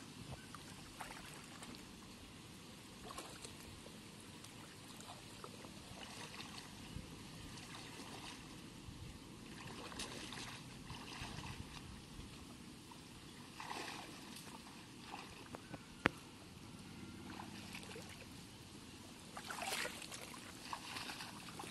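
Faint splashing and sloshing of shallow water as a bamboo polo fish trap is lifted, pushed down into the flooded field and groped inside by hand. There is a single sharp click about three-quarters of the way through, and a louder patch of splashing near the end.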